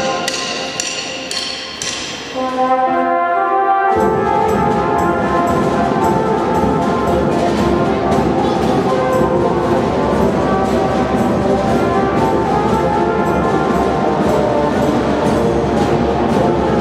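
Marching band music: brass instruments play a melody alone for the first few seconds, then about four seconds in the side drums and bass drum come in with a steady marching beat under the full band.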